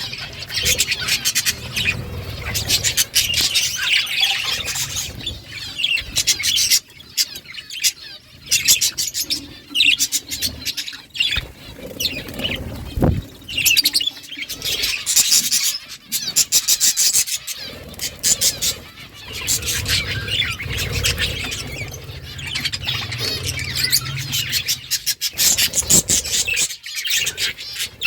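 A flock of budgerigars chirping and chattering over one another without a break.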